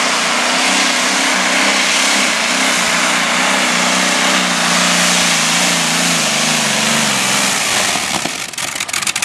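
Modified pulling tractor's engines running flat out under load as it drags the sled, the pitch sagging slowly as it bogs down. About eight seconds in the engines are cut, and the sound drops to a rapid run of crackling pops as they shut down at the end of the pull.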